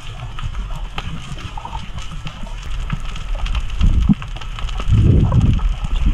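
Underwater sound: a steady crackle of fine clicks over a low rumble, with heavier surges of moving water about four and five seconds in.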